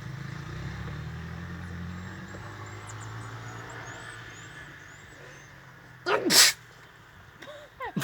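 A low engine hum fading away, with faint high chirps above it, then one short, loud, noisy burst about six seconds in.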